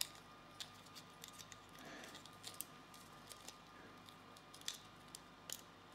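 Faint scattered clicks and light rattles of small plastic and metal parts being handled as the plastic housing, geared motor and wiring of a 3D printing pen are fitted back together.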